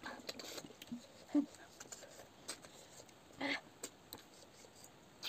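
Scattered small clicks and short sucking sounds of cooked snails being eaten by hand: shells clicking against steel bowls and snail meat sucked from the shells, the loudest about three and a half seconds in.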